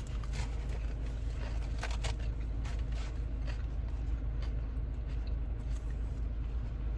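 Eating a salad from a takeout container: chewing with scattered short clicks and scrapes of a fork against the container, over a steady low rumble inside a car.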